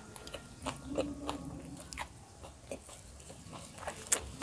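Close-miked chewing of a mouthful of braised fish and rice: short wet mouth smacks and clicks throughout, with a brief low hum about a second in and one sharper click near the end.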